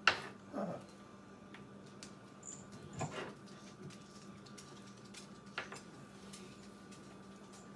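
Chef's knife cutting stewing beef on a wooden cutting board: a sharp knock at the start, then scattered lighter taps and knocks, with a louder one about three seconds in. A brief falling whine follows the first knock, over a steady low hum.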